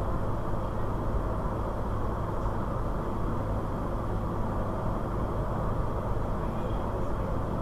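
Steady, dull background noise, even in level throughout, with most of its energy in the low and middle range and none of the rise and fall of speech.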